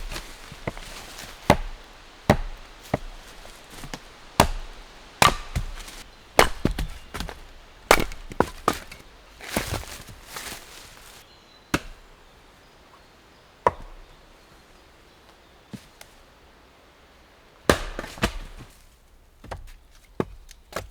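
Wood being chopped by hand: a run of sharp, irregular strikes, dense for the first half, then only a few scattered blows with a brief flurry again near the end.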